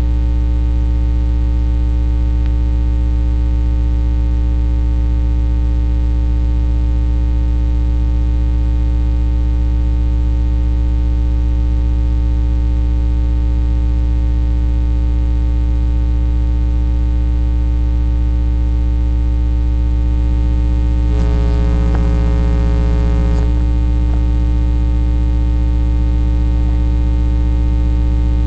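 Loud, steady electrical hum with many overtones, with a brief extra pitched sound a little over two-thirds of the way through.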